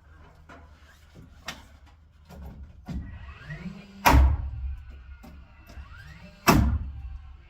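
Two loud, heavy thuds about two and a half seconds apart, each with a short ringing tail, over a steady low hum.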